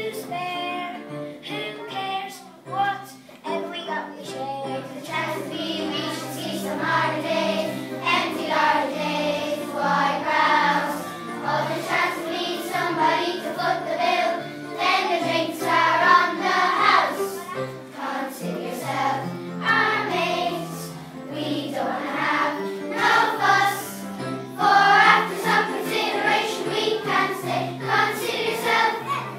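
A choir of young children singing a song together over a musical accompaniment with a stepping bass line.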